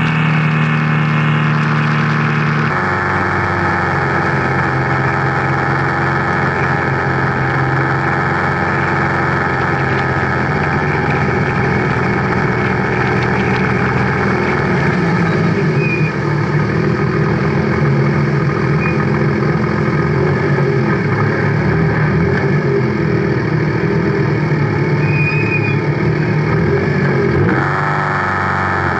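Race car engine idling steadily, its pitch shifting slightly about three seconds in and again near the end.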